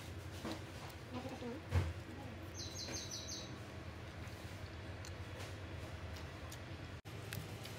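Steady low room hum with scattered light clicks and rustles of plastic cutlery and paper food wrapping during eating, one sharper click a little under two seconds in. About three seconds in comes a quick run of five short high chirps.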